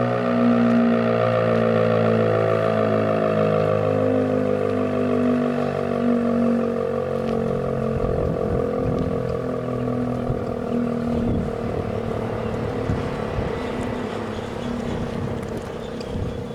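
ACA P-15 fire siren winding down at the end of its test signal, its several-toned wail slowly falling in pitch and fading. Wind rumbles on the microphone from about halfway.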